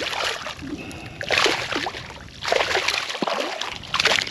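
Hooked speckled trout thrashing at the surface beside a kayak, throwing water in four splashing bursts about a second apart.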